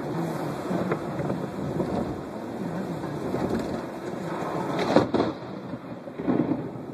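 Thunder rumbling and rain falling on a car's windshield, heard from inside the car, with a sharp loud crack about five seconds in.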